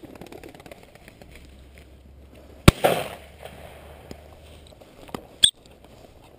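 A single loud, sharp crack, followed by about half a second of rushing noise. Near the end comes a shorter sharp click with a brief high chirp.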